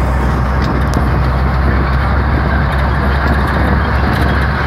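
Steady engine and road rumble inside a moving bus's cabin, deep and even throughout.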